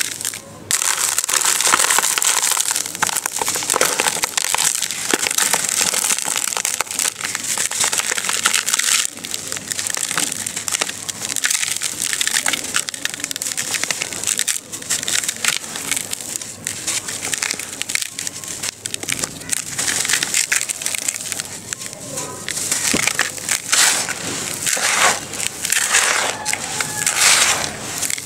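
Dry sand-and-cement powder and lumps crushed and crumbled by hand in a plastic tub, grains pouring back in: a continuous gritty crunching and hissing with many crackly snaps.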